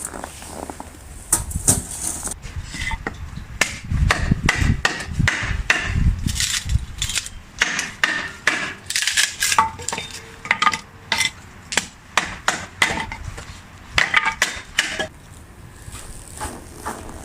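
A run of irregular knocks and clinks, some with a short metallic ring: cookware and utensils being handled during food preparation.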